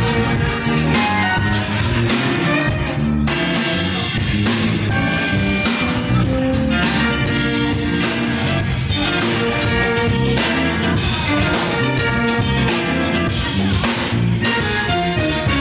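Live band playing with a steady beat, an electric guitar over keyboard and drums.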